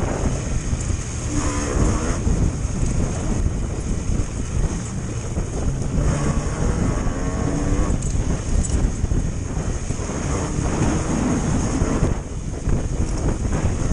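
Four-cylinder motorcycle engine of a home-built dirt bike revving up and down repeatedly while riding off-road, with wind rushing over the microphone.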